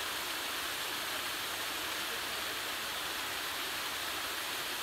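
Steady, even rushing of flowing creek water over rock ledges.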